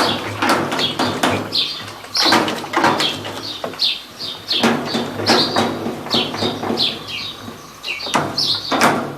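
Electrolux LT15F washing machine's rear suspension rod squeaking and knocking over and over, about three times a second, over the steady hum of the motor as the tub moves. The owner puts the noise down to a damaged cup on the suspension rod.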